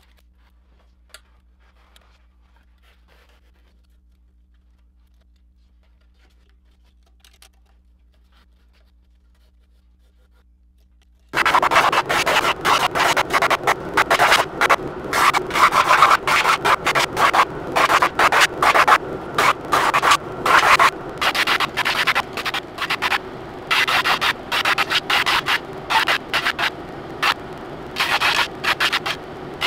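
Near silence with a couple of faint taps for about eleven seconds. Then, suddenly, a drum sander starts grinding down a laminated wooden kayak paddle blank: a loud rasping scrape made of many irregular strokes.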